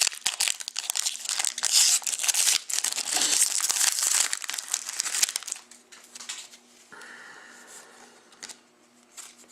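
Trading card pack wrapper being torn open and crinkled, with dense crackling for about five seconds, then quieter rustling as the cards are handled.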